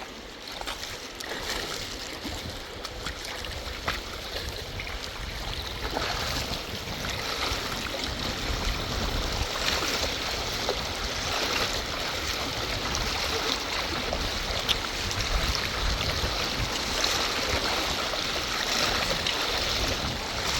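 Rushing river water, a steady noise that grows gradually louder over the first several seconds and then holds.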